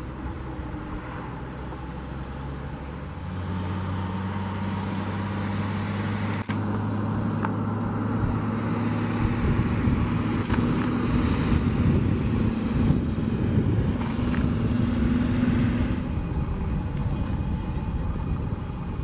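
McDonnell Douglas CF-18 Hornet's twin General Electric F404 jet engines running during its landing rollout. The engine noise is a steady rumble that grows louder toward the middle and eases off near the end.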